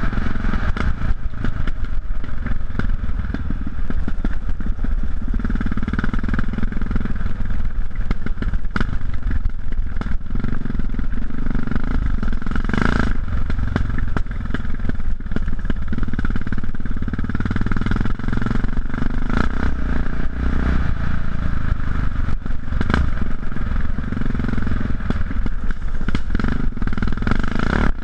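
Yamaha XT660X single-cylinder engine running steadily through Leo Vince aftermarket exhausts while riding a rough dirt trail, with frequent short knocks and rattles throughout.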